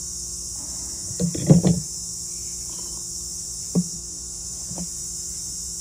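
Metal pliers knocking and clinking against the ingot mold as they are picked up and closed on it. A cluster of knocks about a second and a half in is the loudest, followed by a single sharp tap near four seconds and a softer one about a second later, over a steady high hiss.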